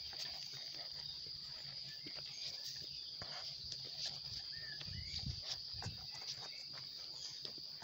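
Insects chirring steadily at one high pitch, with footsteps on a grassy dirt trail and a few short bird chirps.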